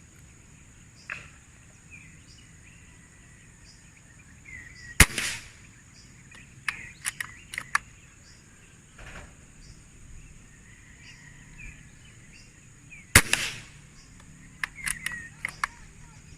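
Gamo Chakal PCP air rifle fired twice, about eight seconds apart, each shot a sharp crack. Each shot is followed a second or two later by a few quick mechanical clicks as the action is worked for the next pellet. A steady high hiss sits underneath.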